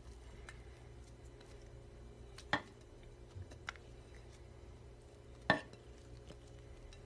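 Two light clinks of a dish against a steel cooking pot, about three seconds apart, with a few fainter ticks between, as slices are set on the rice; a faint steady hum runs underneath.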